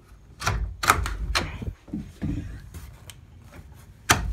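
A run of sharp metal clicks and clacks as a hand works a door's latch and a floor bolt. The loudest clack comes about a second in and another near the end.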